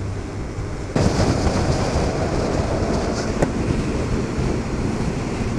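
Motorcycle riding at road speed: a steady engine hum mixed with wind and tyre noise. About a second in, it suddenly steps up louder and hissier, with more wind rushing over the microphone.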